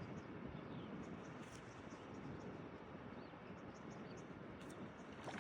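Steady rough outdoor background noise, heaviest in the low end, with faint short high chirps or ticks scattered through it.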